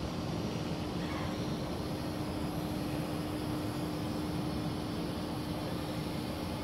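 Kai Deng K-60 X-Fighter quadcopter hovering far overhead: its motors and propellers give a steady, even hum with a single constant tone over a wash of outdoor noise.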